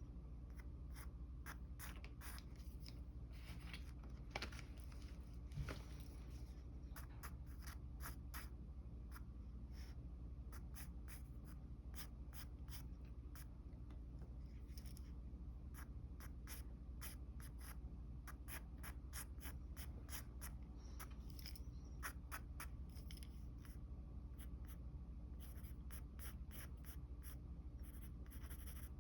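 Pencil sketching on paper: many short, quick strokes scratching steadily, with a couple of slightly louder ticks about four and six seconds in, over a faint low hum.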